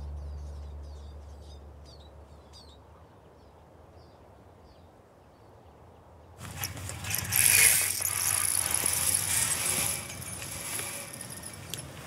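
A low music note dies away under faint, short high bird calls. About six seconds in, loud close rustling and scraping starts suddenly: handling noise as a small bird is taken out of a mist net.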